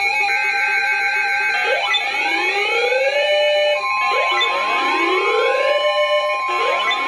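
Electronic alert tones: a whooping sound that rises and then levels off, repeating about every two and a half seconds over steady tones. A further steady high tone joins about four seconds in.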